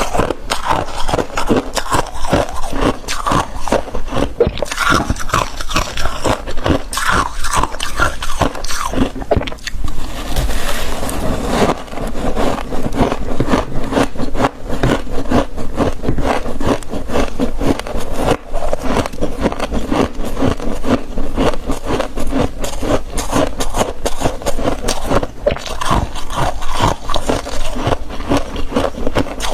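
Thick fluffy freezer frost being scraped and crunched: a dense, unbroken run of crisp crunching and scraping strokes.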